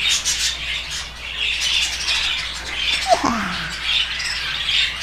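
Many caged parrots, budgerigars among them, chattering and squawking continuously. One call slides down in pitch about three seconds in.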